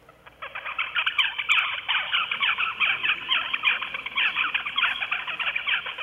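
Recorded juvenile zebra finch babbling, played over loudspeakers: a rapid, unbroken stream of variable, immature chirps and notes with no pauses, starting about a third of a second in. This is the bird's early practice stage of song learning, before he can copy his tutor's song.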